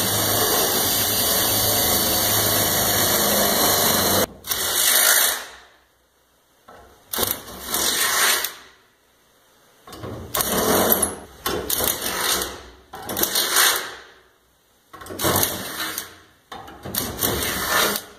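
Cordless drill boring holes down through the pickup's bed floor, guided by a hitch mounting plate: one long steady run of about five seconds, then six shorter bursts of a second or so each, stopping and starting as the holes are drilled.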